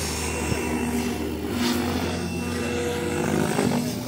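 Radio-controlled Specter NME model helicopter flying aerobatics, its rotor and drive running with a steady whine and blade buzz that shifts in pitch and loudness as it manoeuvres.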